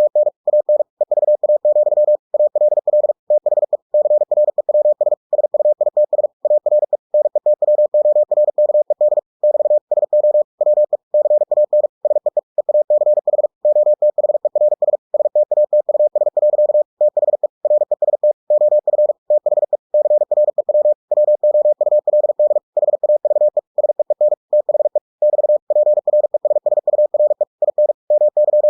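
Computer-generated Morse code (CW) sent at 45 words per minute: a single pure tone keyed on and off in rapid dots and dashes with short gaps between letters and words.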